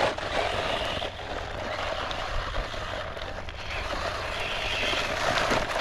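JJRC C8805 brushless 4x4 RC truck driving on its lowest throttle rate: a steady hiss of electric motor and tyres, with a faint high whine near the end.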